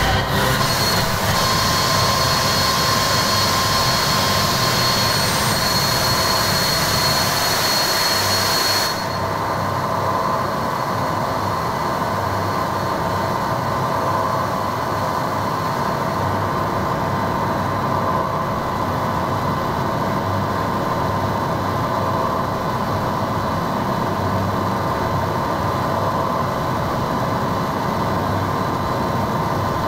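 Harsh-noise performance: a continuous, dense wall of distorted electronic noise from a small Korg synth and a cheap transistor radio run through Boss distortion and octave pedals, with a high whine held through it. About nine seconds in, the hissing top end cuts off abruptly and the noise goes a little quieter and darker.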